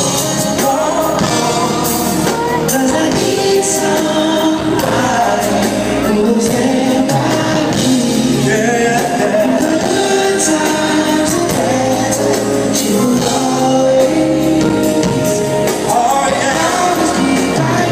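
Live concert music: a male R&B vocal group singing in harmony over their band, heard loud and steady as recorded by a phone in a large hall.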